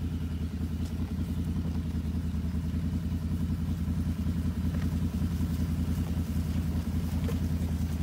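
An engine running steadily at an even, low speed, with a fast regular pulse.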